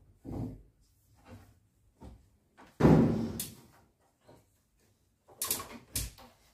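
A long wooden board being pushed up between wooden ceiling joists, knocking and scraping against them: a few light knocks, a loud thump about three seconds in that trails off, then a quick run of sharp knocks near the end.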